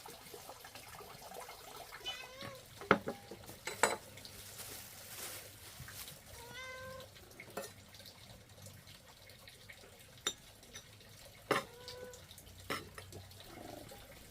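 A cat meowing three times in short calls, with several sharp knocks in between.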